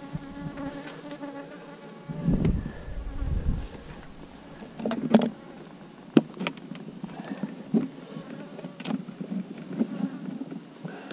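Honeybees buzzing around an open hive, a steady hum of several pitches. A low rumble comes about two seconds in, and a few sharp clicks and knocks follow from about five seconds in.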